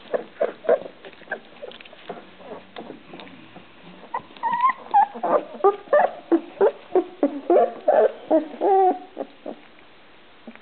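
Young Rhodesian Ridgeback puppies whimpering and squeaking: soft short whines at first, then a quick run of louder squeals and whimpers from about four seconds in that stops shortly before the end.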